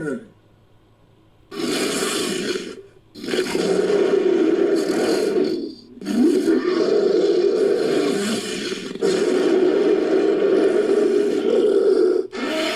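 Made-up dinosaur roars for a Nanuqsaurus–Utahraptor hybrid, mixed from Nanuqsaurus and Utahraptor sound effects. After a second and a half of near silence comes one short roar, then a run of long roars a few seconds each, with brief breaks between them.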